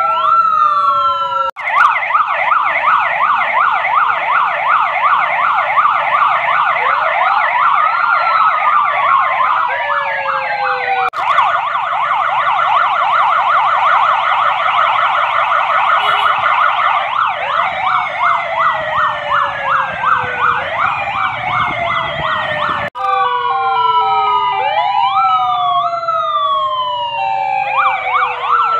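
Several electronic police sirens sounding together from a motorcade of police motorcycles and a pickup: a fast yelping warble over slower wails that rise and fall, overlapping and out of step. The sound breaks off and restarts sharply a few times.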